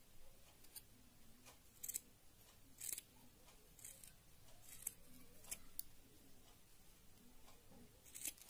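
Faint snips of scissors trimming the loose ends of a yarn pompom: about eight short, sharp cuts at irregular intervals, the strongest about two, three, five and eight seconds in.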